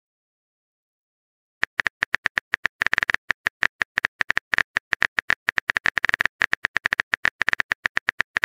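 Phone keyboard typing sound effect: a rapid, uneven run of short key clicks, starting about a second and a half in.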